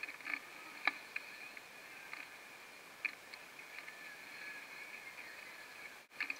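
Sped-up room sound from the painting session: a steady high-pitched whine with scattered sharp clicks and squeaks. The sound drops out for an instant near the end.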